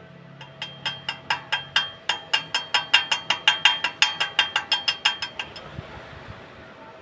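A chipping hammer knocking slag off a stick weld on steel square tube: quick ringing metal taps, about four or five a second, stopping about five and a half seconds in.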